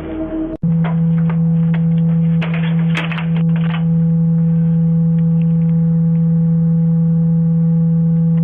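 A loud, steady low hum that starts suddenly about half a second in and holds one pitch throughout. Several short clicks and knocks sound over it between about one and four seconds in.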